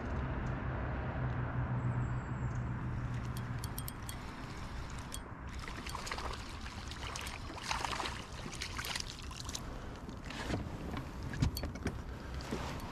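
Ultralight spinning reel being cranked and a hooked crappie splashing at the surface as it is fought to the boat, with scattered clicks and knocks of handling. A steady low hum runs under the first few seconds and stops about four seconds in.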